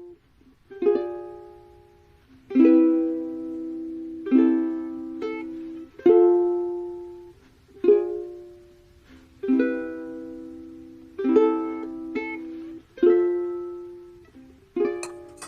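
Background music: plucked chords struck about every second and a half to two seconds, each ringing out and fading before the next.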